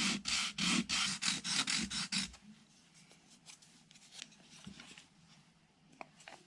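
Wooden pistol grip panel being sanded down with quick back-and-forth strokes, about five a second, which stop a little over two seconds in; faint light clicks of handling follow. Material is being taken off the top edge of the grip so it clears the slide.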